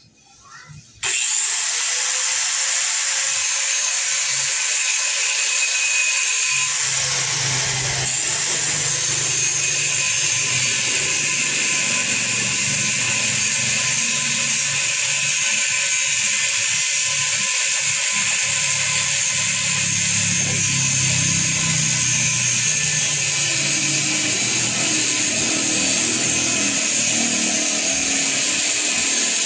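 Handheld angle grinder switched on about a second in, then running steadily with a high whine as its disc cuts a metal pipe. The cutting noise turns heavier a few seconds later as the disc bites into the metal.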